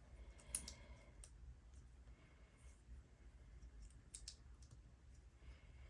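Small plastic Lego pieces clicking as they are handled and pressed onto the build: a few light clicks about half a second and a second in, and a pair of clicks about four seconds in.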